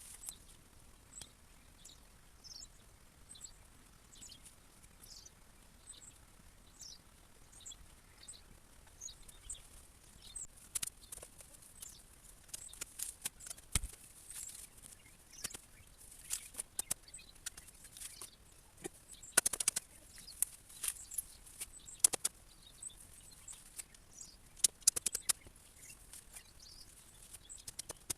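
Dropwort stems and leaves rustling and crackling as they are pulled out and handled, in irregular bursts that grow busier and louder partway through. Small birds chirp faintly in the background.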